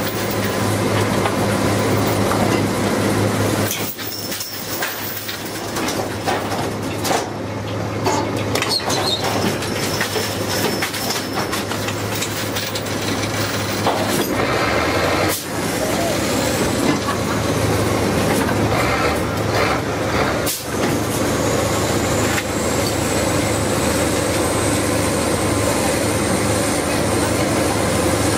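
Drilling rig floor machinery running with a steady drone, with scattered metal clanks and knocks from the pipe tongs and drill pipe as the crew works the pipe at the rotary table.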